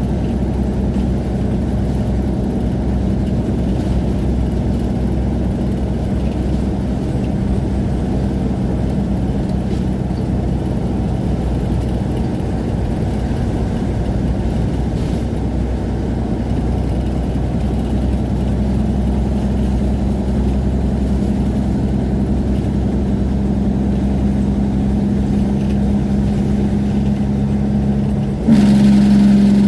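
Semi-truck's diesel engine running steadily with an even drone, turning abruptly louder and harsher about a second before the end.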